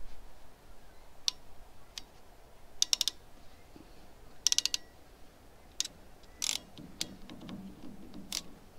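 Hand-operated A/C hose crimping tool clicking and clacking as a fitting is crimped onto a new air-conditioning hose: scattered single metal clicks and two quick runs of several clicks about three and four and a half seconds in.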